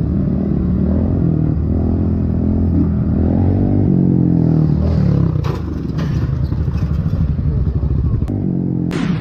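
Motorcycle engine running, heard from the rider's own bike, with a few sharp clattering strikes about halfway through as motorcycles ahead crash and hit the road. A single sudden loud crack that dies away comes near the end.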